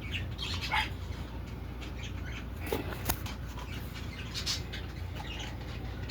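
Birds calling, with scattered sharp clicks and knocks over a steady low hum.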